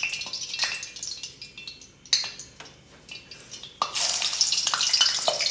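Kitchen clatter of utensils and dishes, with scattered clicks and a sharp knock about two seconds in. Near the end a loud steady hiss starts abruptly.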